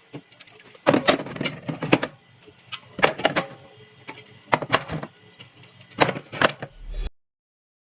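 Items and containers being handled and set down while a mini fridge is restocked, in clusters of knocks and clatters with short pauses between them. The sound cuts off abruptly about seven seconds in.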